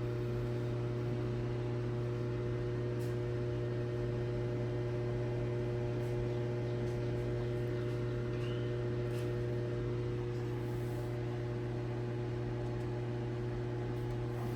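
A steady low hum with a few faint, even tones above it, unchanging throughout, with a few faint ticks.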